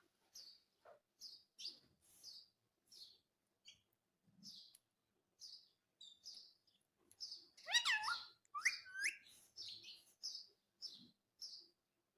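Indian ringneck parrot chirping: short high chirps repeated about twice a second, with one louder, longer call that rises and falls in pitch about eight seconds in.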